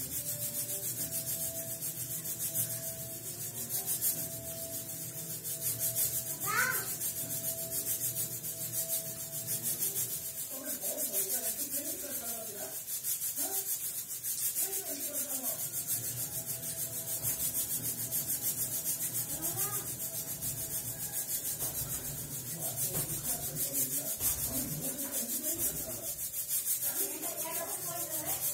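Pressure cooker on a low gas flame, building pressure toward its whistle, with a faint steady hiss.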